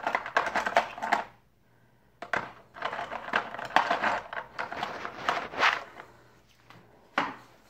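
Watercolour paint tubes being rummaged through by hand, clattering and rustling against each other in two spells, one of about a second and one of about three and a half seconds. A single click comes near the end.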